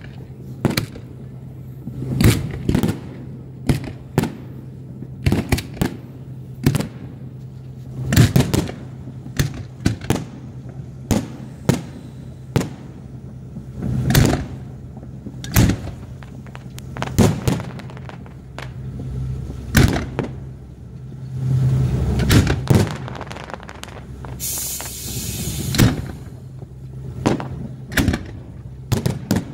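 Aerial fireworks shells bursting one after another, booms and cracks coming every second or so, over a steady low hum. Near the end comes a brief hiss.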